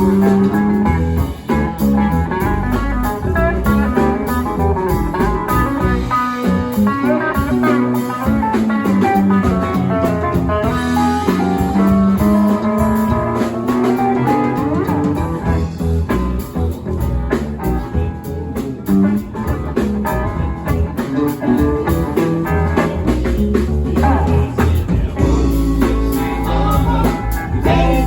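Live band playing a blues tune, with guitar lines over drums.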